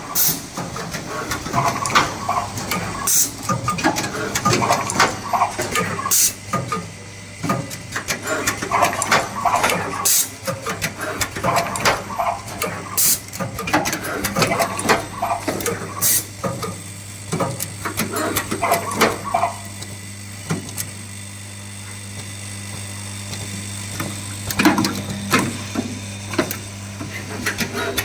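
Automatic wire-processing machine running through its cycle: thermal stripping, terminal crimping and housing insertion for air-conditioner inverter cables. Irregular sharp clicks and knocks of its mechanisms sit over a steady low hum.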